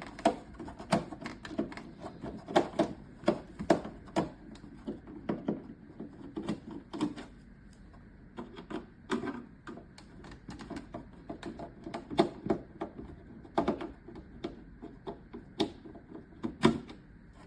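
Irregular clicks and light knocks of a screwdriver turning out screws and handling a plastic appliance casing.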